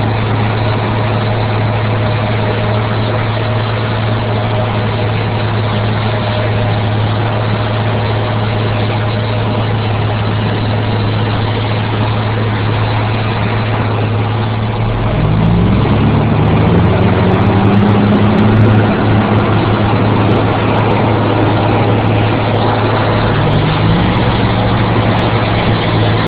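Heavy farm machinery running at corn silage harvest: a loud, steady engine with a deep hum. About fifteen seconds in, the engine note rises and grows louder, and it rises again a few seconds before the end.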